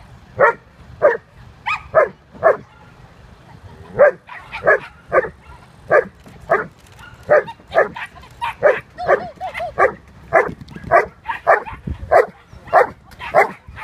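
A dog barking over and over while running an agility course: short, sharp barks about two a second, with a break of about a second and a half near the start.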